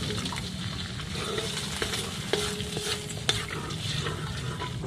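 Sautéed garlic and onion sizzling in a pan on the heat while being stirred, with a few light clicks of the utensil against the pan in the middle.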